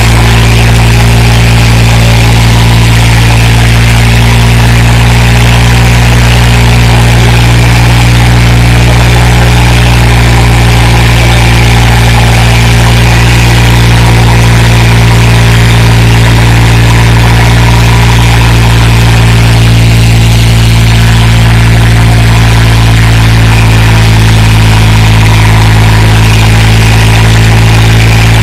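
Swaraj 963 FE tractor's three-cylinder diesel engine running loud and steady at one held speed, labouring under heavy load as it pulls two harrows, with black smoke pouring from the exhaust.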